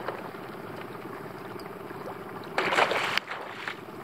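A hooked fish thrashing at the surface beside the canoe as it is brought to the landing net: one loud splash about two and a half seconds in, lasting about half a second. An outboard motor runs steadily underneath.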